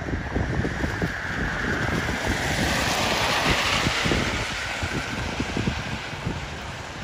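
Wind buffeting the microphone in irregular low thumps, over a steady hiss that swells for a few seconds in the middle.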